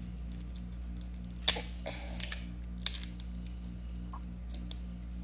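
Snow crab legs being cracked and snapped apart by hand: a few sharp shell cracks, the loudest about one and a half seconds in, followed by smaller cracks and clicks as the shell is picked apart.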